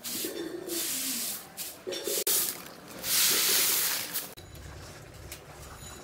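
A long grass broom sweeping eggshells and scraps across a hard floor in a few long, swishing strokes, the loudest about three seconds in. The sweeping stops after about four seconds.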